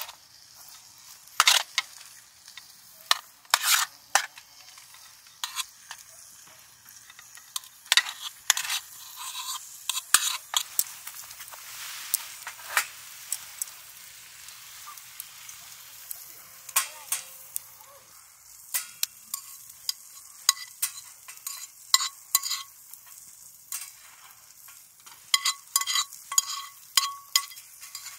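Food sizzling in a metal pan while a utensil repeatedly clinks and scrapes against it. Some strikes ring briefly, and the clinks come thickest in the second half.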